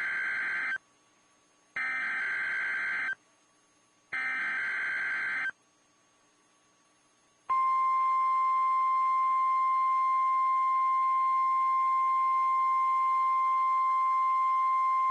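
NOAA Weather Radio test signal. Three short rasping bursts of SAME digital header data come about a second apart, the first already under way. After a short pause the steady 1050 Hz warning alarm tone starts, loud and unbroken.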